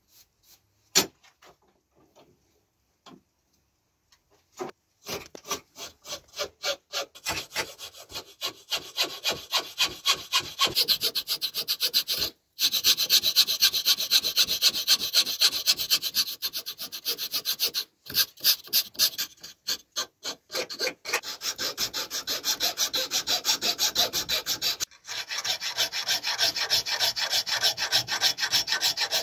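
A flat metal file rasping across a wooden knife-handle blank, shaping it with rapid back-and-forth strokes. After a few quiet seconds with a couple of clicks, the strokes start about five seconds in, run together into a continuous scraping and stop briefly a few times.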